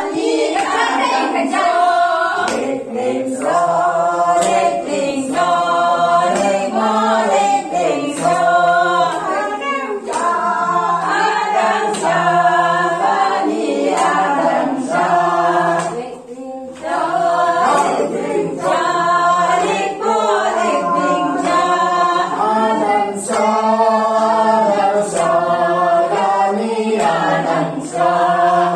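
A group of men and women singing together without instruments, in short repeated phrases with a brief break about sixteen seconds in.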